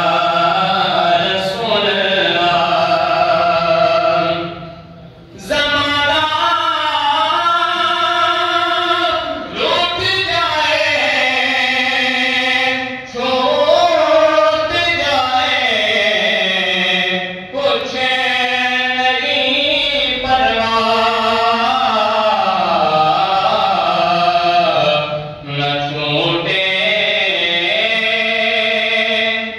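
A man's voice chanting a melodic religious recitation in a mosque, holding long wavering notes, with a breath pause about four seconds in and a few shorter pauses later.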